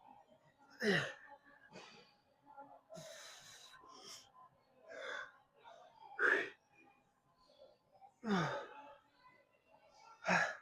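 A man's forceful, strained exhales during a set of weightlifting reps, one every second or two, some voiced with a falling pitch.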